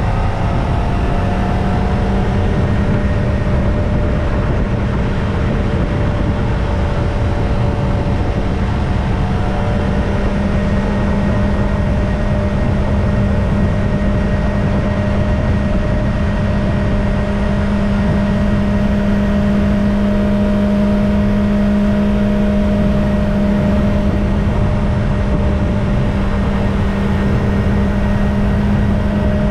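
Kawasaki Ninja ZX-25R's 249 cc inline-four with its stock exhaust, running steadily at an even cruising speed, its pitch holding nearly constant and rising slightly about two-thirds of the way through, over a dense low rumble.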